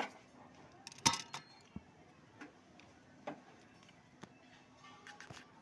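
Irregular clicks and light metallic knocks, the loudest about a second in and a small cluster near the end, as tools and parts of an air-conditioner outdoor unit are handled.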